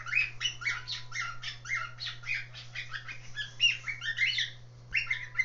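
Cockatiel chicks calling in a rapid run of short, high chirps, about four or five a second, with a brief break near the end; they are copying a call the adult male usually makes.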